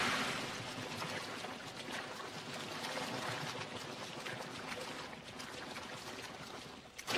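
Water splashing and churning from a swimmer in a pool: a steady wash of noise that eases a little after the first second and drops away just before the end.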